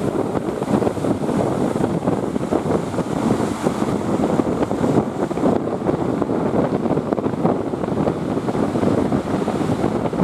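Strong wind buffeting the microphone, steady and loud, over the rush of sea surf.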